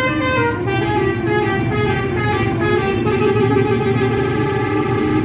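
Bus 'telolet' musical air horn playing a tune: a quick run of stepping notes, then longer held notes, over a steady low rumble.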